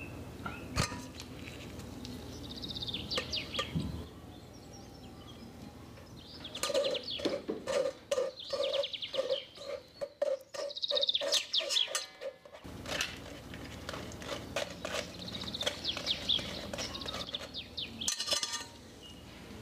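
Metal spoon scraping and pressing date-and-banana milk pulp through a fine wire-mesh sieve over a stainless steel pot, with squeaky scrapes and metal clinks. In the middle the spoon works in quick repeated strokes, about two a second.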